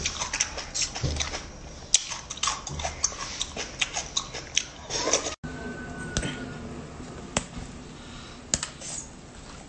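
Close-up eating of marinated mud snails: rapid wet clicks, sucking and crunching of the snail shells in the mouth for about five seconds. The sound then cuts off abruptly to a quieter stretch with only a few isolated clicks.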